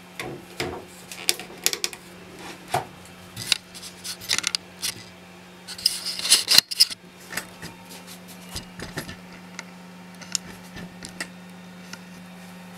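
Handling sounds: scattered light clicks and knocks with some rubbing, over a steady low hum. About six seconds in, a louder scraping rustle ends in a sharp knock.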